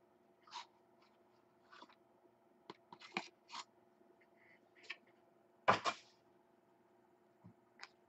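Trading-card packaging being handled: scattered short rustles and scrapes, with one louder rustle about six seconds in.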